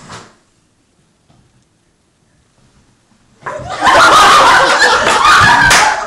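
A hush, then about three and a half seconds in a group suddenly bursts into loud laughter that keeps going.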